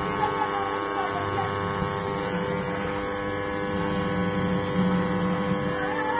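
Videocon V-NA-51 top-loading washing machine running its wash cycle, its motor giving a steady hum while the clothes churn in the water. The wash is working again after a rat-chewed wire was rejoined.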